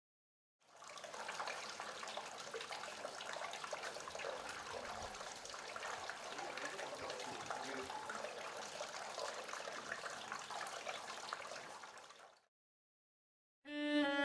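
Water trickling and dripping, a steady patter of many small splashes that cuts off after about twelve seconds. After a short silence, slow bowed-string music with a cello comes in near the end.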